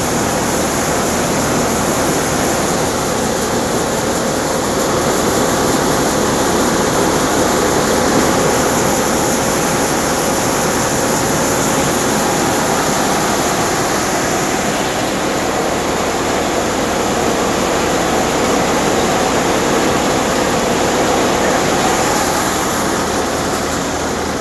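Tractor-driven New Malwa thresher running steadily while threshing pearl millet (bajra): a loud continuous mechanical din with a steady hum, together with the rush of grain and chaff through the machine.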